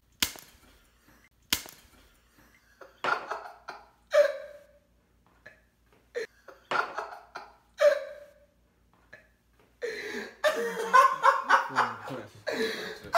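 Two sharp smacks about a second apart, then short bursts of stifled snickering laughter that grow into open laughing in the last few seconds.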